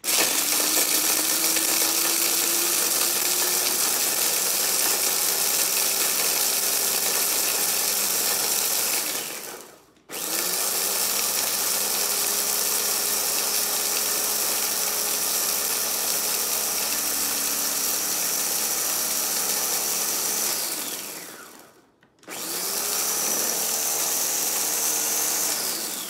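Electric mini chopper grinding whole dry spices (peppercorns, cloves, cinnamon, cumin, coriander, fennel) to a powder. It runs in three long presses with short stops between, and each press begins with a rising whine as the motor spins up.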